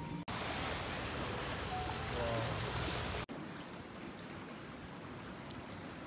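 Wind and water noise from a boat moving across the sea: a steady, even hiss. It drops to a quieter hiss at a sharp cut about three seconds in.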